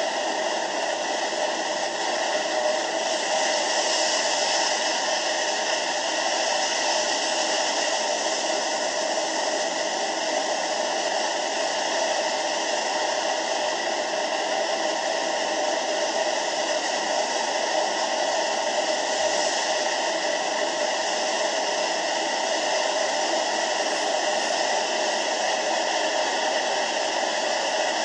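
Steady, unbroken rushing noise of tsunami floodwater surging past, with little bass.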